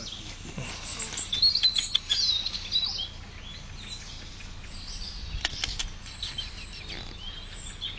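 Guinea pigs squeaking, with a burst of high-pitched squeaks that is loudest between about one and three seconds in. A few sharp clicks come about five and a half seconds in.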